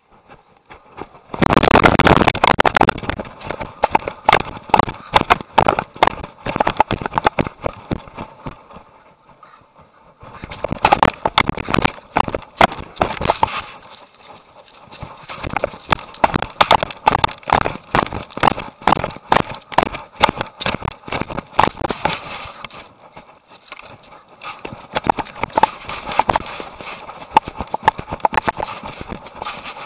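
Rapid, dense footfalls and scrapes of a running Akita's paws on dirt and leaf litter, picked up close by a camera carried on the dog. They come in bursts with quieter pauses between and are loudest near the start.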